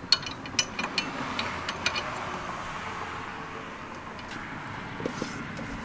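A few light metal clicks and taps from trailer-hitch pin and bracket hardware being handled, most of them in the first two seconds, over a steady background rush.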